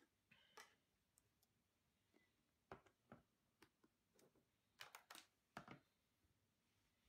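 A handful of faint, scattered clicks and light taps of packaging being handled: a Fibaro Swipe gesture-control panel slid out of its cardboard sleeve and plastic insert.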